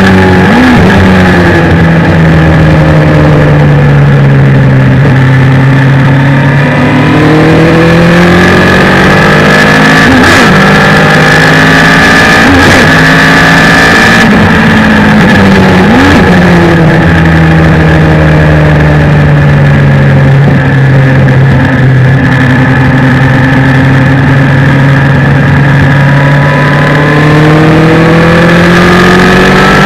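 Suzuki Hayabusa inline-four motorcycle engine in a race car, heard onboard while lapping hard. The engine note sweeps down and back up through braking, gear changes and acceleration, with a few quick sharp rises in pitch.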